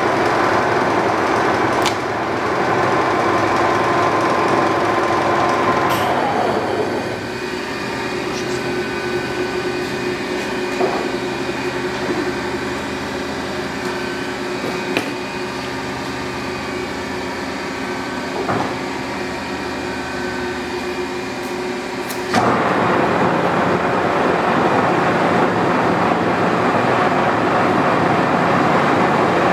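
1963 Monarch engine lathe running under power, a steady mechanical hum and gear whine from its geared headstock. About seven seconds in the pitch falls away and the sound drops to a quieter steady run with a few light ticks. It steps back up sharply around twenty-two seconds in.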